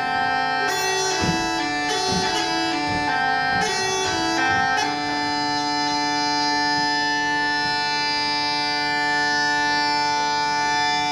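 Lithuanian bagpipe (dūdmaišis) playing a melody over a steady drone. From about five seconds in it settles on one long held note.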